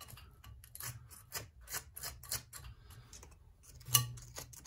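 A steel pick scraping and clicking against the tappet block and aluminum engine case of a 1957 Harley-Davidson flathead, digging out caked grime. Irregular light clicks, with a sharper click about four seconds in.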